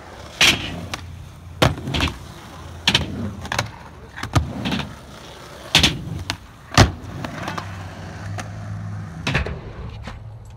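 Skateboard wheels rolling on concrete, broken by about ten sharp clacks as the board pops, lands and strikes ledges and coping, the loudest a little past the middle.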